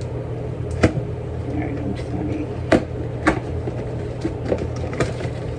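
A few sharp clicks and knocks, about four, from a new Revlon One-Step hair dryer and its packaging being unboxed and handled.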